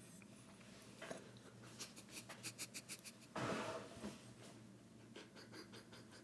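Faint handling noises: a quick run of small clicks and scratches, then a brief rush of noise just past halfway, and a few more light ticks.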